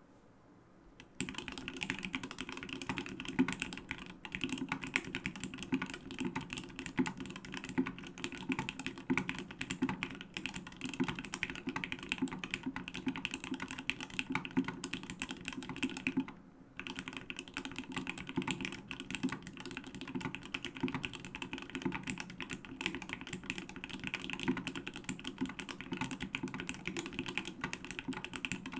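Fast continuous typing on a Duck Orion V3 custom mechanical keyboard: lubed Geekmaker Creamy Yellow switches in an aluminum plate with no sound-absorbing pad, giving a dense stream of key strokes. It starts about a second in and breaks off briefly about halfway through.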